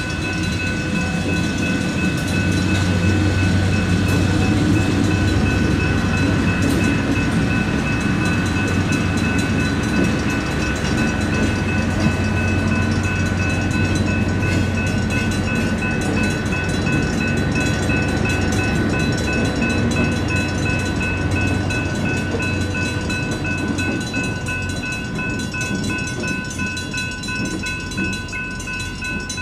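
GS Type 3 electronic crossing bell ringing steadily, over the low rumble of a freight train with RP20GE locomotives rolling through the crossing. The rumble eases after about twenty seconds, and the bell cuts off at the very end as the gates start to rise.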